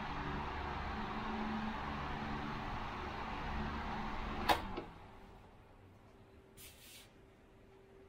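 Electric stand fan running at its highest speed setting, a steady rush of air with motor hum, test-run after a repair. About four and a half seconds in, a switch clicks and the sound drops to a faint whir as the fan winds down.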